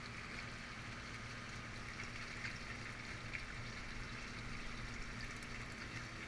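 Water splashing and bubbling steadily in an aquaponics fish tank, over a steady low hum.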